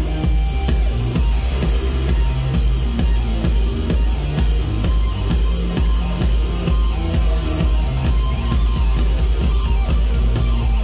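A live band playing electronic rock through a PA, with heavy, steady bass and a drum kit.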